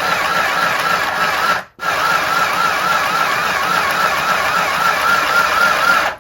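Mini electric sewing machine running and stitching, a steady motor whirr with a fast even rhythm from the needle. It stops briefly about a second and a half in, then runs again.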